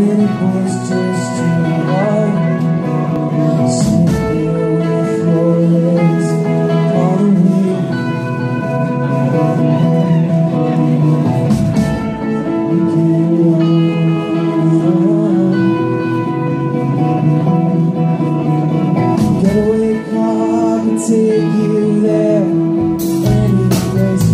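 Celtic rock band playing live on stage: electric guitar and bass under long held melody notes, with occasional cymbal strokes.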